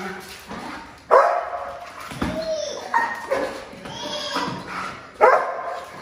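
Young Belgian Malinois barking repeatedly on the leash in bite training, lunging at a decoy's bite pillow. Loud barks about a second in and again near the end, with more barks and a rising-then-falling whine in between.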